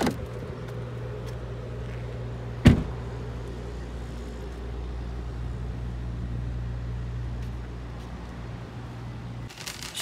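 A vehicle engine running with a steady low hum, and one sharp thump about three seconds in.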